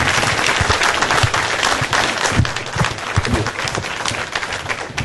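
Audience applauding, dying down toward the end.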